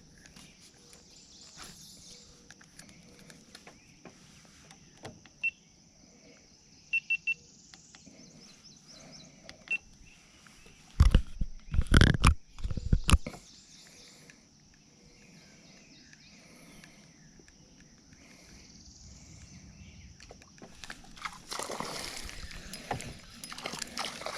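Open-water ambience with a steady high drone and a few short high chirps, broken by a cluster of loud knocks about eleven to thirteen seconds in. Near the end a rushing, splashing noise builds as a small bluegill is brought in on the line.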